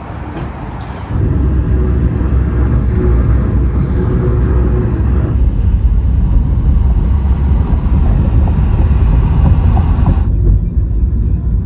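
Road vehicle in motion: a loud, steady low rumble of engine and road noise that comes in abruptly about a second in.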